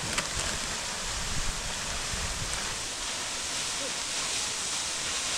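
Steady hiss of water falling at a waterfall, a thin winter flow rather than a full torrent.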